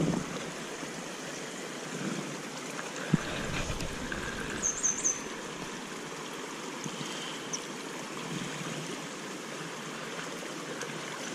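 Shallow river current flowing steadily around a wading angler's legs. A sharp click comes about three seconds in, and three quick high chirps about five seconds in.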